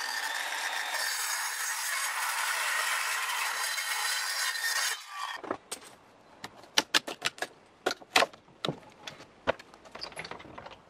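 A steady harsh noise for about five seconds that cuts off suddenly, then a run of sharp, irregular cracks and knocks of old weathered planks being wrenched loose from a wooden shed wall.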